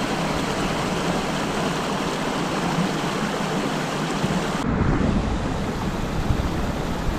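Creek water rushing steadily over rocks in a small cascade. About two-thirds of the way through it cuts off abruptly to a duller, lower rumble.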